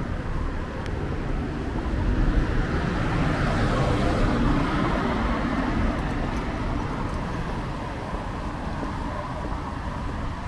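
Street traffic: a car passes close by, its noise swelling about two seconds in, peaking around four seconds and fading by six, over steady traffic noise.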